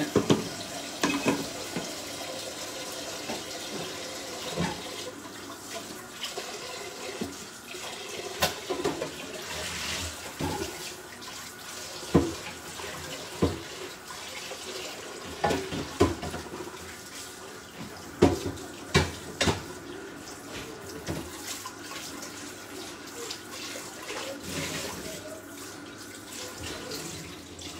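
Pasta water boiling in a covered pot beside a pan of simmering mussels: a steady bubbling hiss with scattered sharp clicks and pops. A metal pot lid clatters down at the very start.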